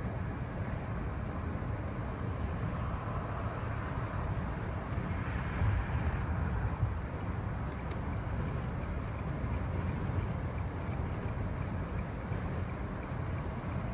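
Car driving slowly along a city street: a steady low rumble of engine and tyres, a little louder about six seconds in.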